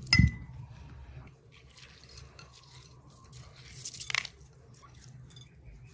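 A short glassy clink at the start, then soft, irregular squishing of minced meat for kofta being mixed and kneaded by hand in a glass bowl.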